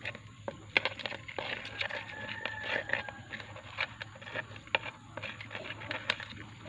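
Irregular sharp clicks and scratchy scrapes as two scorpions grapple with a praying mantis on the floor of a plastic tub.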